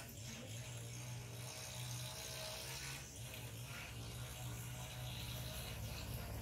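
Small motorbike engine running steadily as the bike approaches, growing a little louder near the end.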